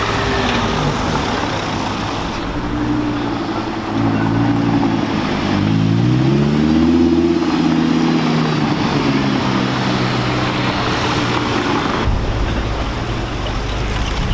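High-performance car engines running as the cars roll by at low speed, one after another. About six seconds in, one engine revs up and falls back.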